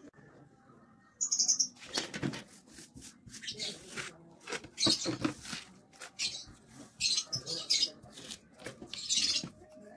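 Folded paper raffle slips rustled and crumpled by hand and dropped into a clear plastic jar: an irregular run of crinkling and rustling that starts about a second in.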